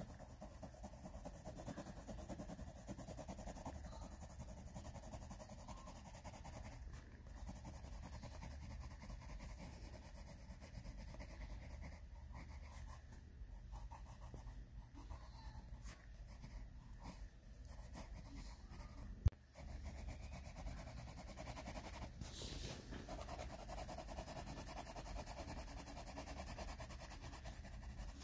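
Colored pencil shading on paper: a faint, steady scratching of quick back-and-forth strokes, with one sharp click about two-thirds of the way through.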